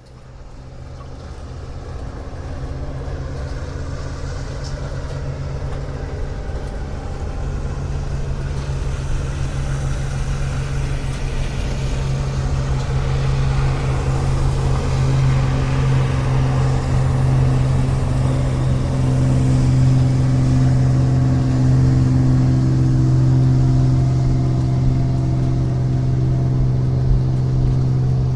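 Motorboat engine running at a steady pitch, growing louder through the first half and then holding level.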